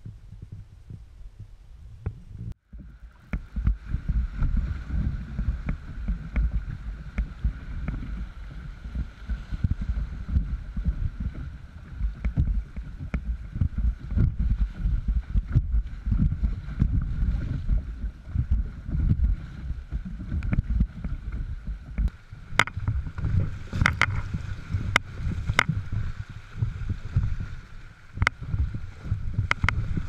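Canoe running river rapids: rushing, splashing water with dense low rumbling thumps of water and buffeting against the canoe-mounted microphone. The first couple of seconds are quieter, and a few sharp knocks come near the end.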